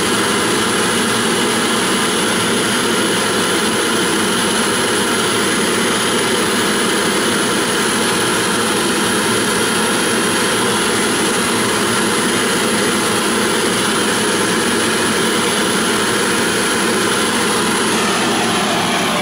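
Gas torch flame burning steadily and loudly, heating a copper boiler joint to silver-soldering temperature.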